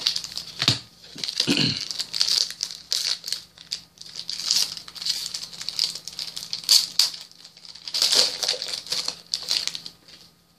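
Foil Redakai trading-card booster-pack wrapper crinkling as it is torn open by hand, in irregular crackling rustles that die away near the end.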